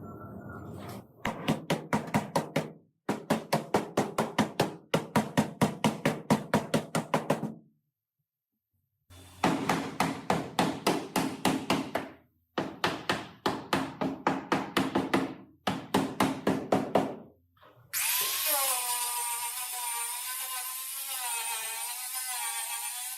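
Power tool hammering in six short bursts of rapid, even knocks. About three quarters of the way through it gives way to a steady whirring tool whose pitch wavers.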